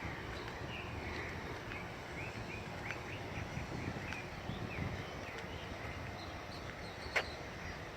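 Small birds chirping in short, repeated calls over a steady low outdoor rumble, with one sharp click about seven seconds in.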